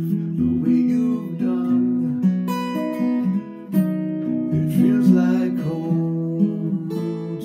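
Solo acoustic guitar playing strummed chords that ring on, a new chord every second or so, with no singing.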